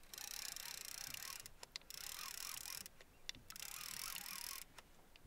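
Spinning reel's drag clicking in rapid buzzing runs as a hooked lake trout pulls line off the loosely set drag, three runs of about a second each with short pauses between.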